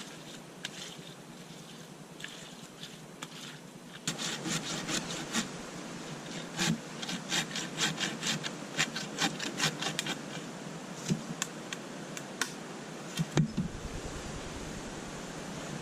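Repeated rasping strokes of a hand tool, about two or three a second. They start about four seconds in, thin out after ten seconds, and end with a heavier knock near the end.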